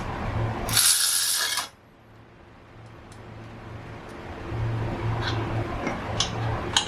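Bike parts being worked on during teardown: a small motorised hum that runs and stops, a short loud hiss about a second in, and sharp metallic clinks and ticks of parts and tools near the end.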